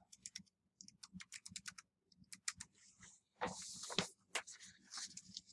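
Computer keyboard keys clicking faintly in a quick run as a single word is typed, followed by a few scattered clicks and a short hiss.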